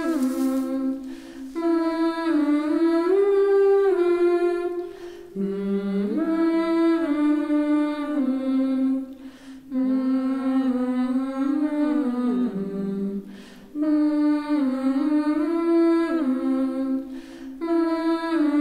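Soundtrack music: a wordless hummed vocal melody sung in long phrases, with short breaks between them.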